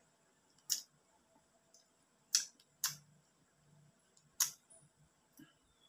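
Wet mouth smacks of someone eating ripe mango, biting and sucking the flesh off the peel: four short, sharp smacks, two of them close together in the middle.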